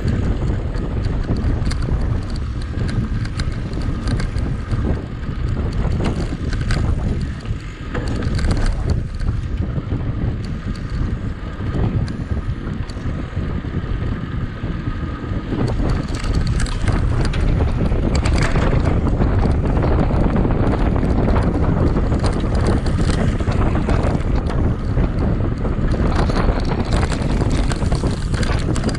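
Wind buffeting the microphone as a mountain bike is ridden, with frequent knocks and rattles from the bike over rough ground. The noise grows louder and denser about halfway through.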